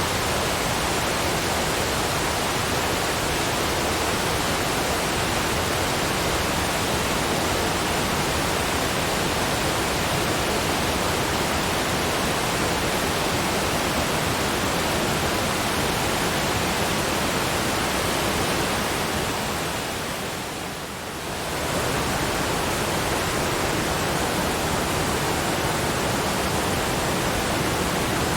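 Waterfall rushing: a steady, even roar of falling water. It dips briefly in level about two-thirds of the way through, then comes back to full strength.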